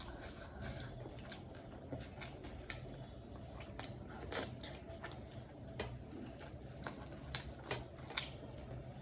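Close-miked chewing of a mouthful of chicken biryani, with irregular wet smacking and clicking mouth sounds, the loudest about halfway through.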